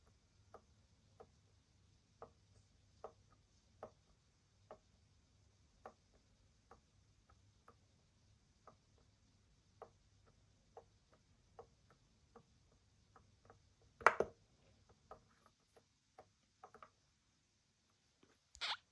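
Control dial of a ResMed AirSense 10 CPAP machine clicking as it is turned through the menus, a click about every half second to a second. Two louder clicks stand out, one about fourteen seconds in and one near the end.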